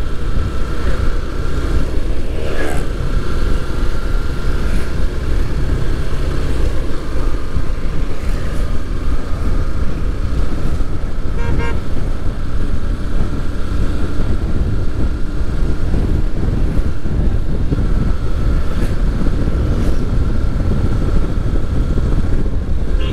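Yamaha FZS V3 motorcycle's single-cylinder engine running steadily at riding speed, recorded on board with constant wind rush on the microphone. A short pulsing, horn-like tone sounds about halfway through.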